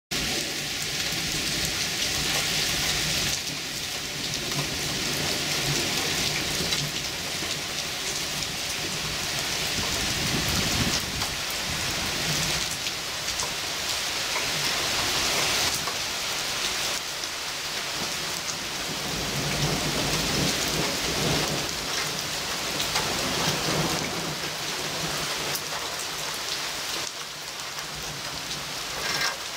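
Heavy thunderstorm rain pouring steadily, with low thunder rumbling now and then.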